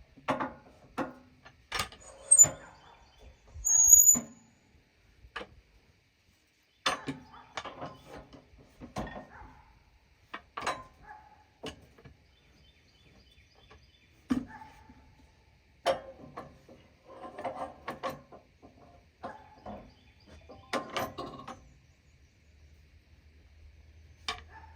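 Irregular knocks, clunks and clatter of wood being handled on a sawmill between cuts, with no saw running. There are two short high chirps in the first few seconds.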